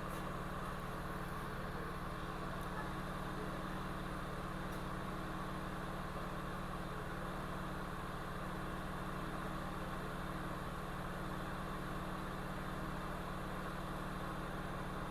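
Hot-air rework station blowing a steady hum of fan and air, used to desolder a damaged chip from a MacBook Air logic board.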